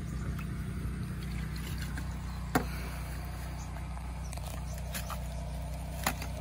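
A steady low motor hum, with light rustling and two sharp clicks, one about two and a half seconds in and one near the end, from pesticide bottles and a plastic bag being handled.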